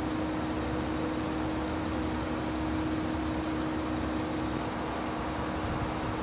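A car idling: a steady hum with a held low tone over an even noise.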